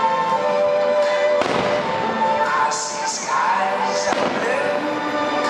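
Aerial firework shells bursting, two sharp bangs about a second and a half and four seconds in, over loud music with sustained tones.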